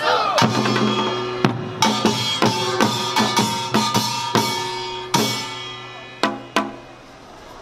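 Samulnori ensemble of Korean drums and gongs striking together, the gongs ringing on between strokes. The strokes come thick at first, then thin out to two final hits near the end as the piece closes and the ringing fades.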